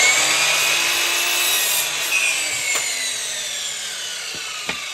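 DeWalt mitre saw cutting through a length of 45 mm square pine, then the blade spinning down, its whine falling slowly in pitch and growing quieter. Two sharp knocks come later on, one near the end.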